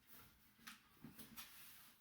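Faint handling noises: a few soft clicks and light rustles of a box and its packaging being worked open, close to near silence.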